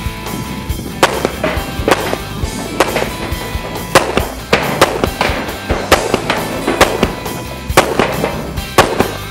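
Rock music with a sharp, hard hit about once a second.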